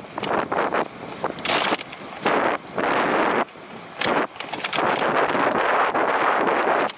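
Wind rushing over the microphone of a camera on a moving bicycle, cutting in and out abruptly several times as the airflow shifts.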